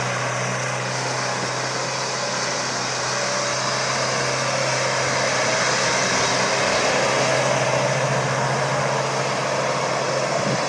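Mahindra Thar's engine running steadily under way, growing slightly louder after about halfway.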